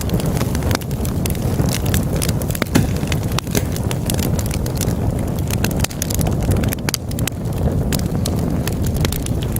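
Wood fire burning in a fireplace: a steady low rumble of the flames with frequent irregular crackles and pops from the burning logs.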